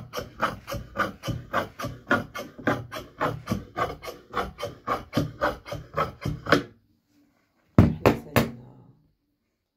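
Steel dressmaking shears snipping through dark cloth on a table in a steady run of snips, about three a second, stopping about seven seconds in. Three sharp, loud knocks follow about a second later.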